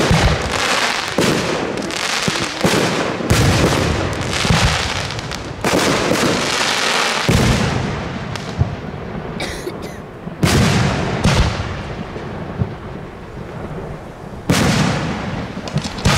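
Aerial fireworks shells launching and bursting one after another: about a dozen sharp bangs a second or two apart, each trailing off before the next.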